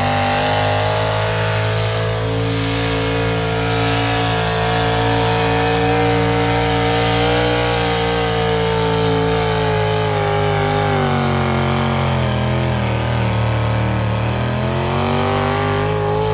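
Competition pulling tractor's engine running at high revs under full load as it drags a weight-transfer sled. The pitch holds steady, sags about two-thirds of the way through as the engine labours, then climbs again near the end.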